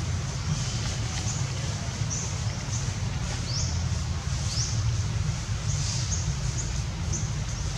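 Outdoor ambience: a steady low rumble, with a small bird repeating short, high, rising chirps about once a second.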